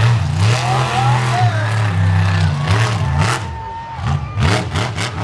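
Monster truck engine revving hard, its pitch rising and falling again and again with the throttle, with brief crowd shouts over it.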